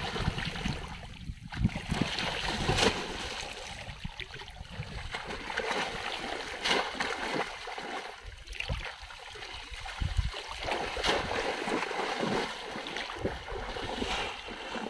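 Shallow floodwater sloshing and splashing as people wade through it and plunge bamboo polo fish traps down into it, with scattered sharper splashes. Wind rumbles on the microphone near the start.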